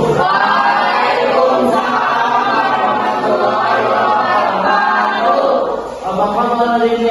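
A class of students' voices chanting together in unison, with a short break about six seconds in.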